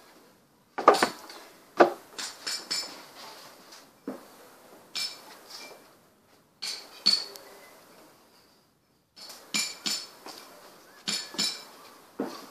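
Lengths of timber knocking and clattering as they are handled: a string of sharp knocks, each with a brief ring, in irregular clusters. The loudest is about a second in.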